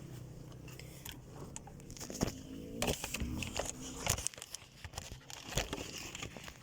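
Rustling and crinkling with many scattered sharp clicks and knocks: close handling noise.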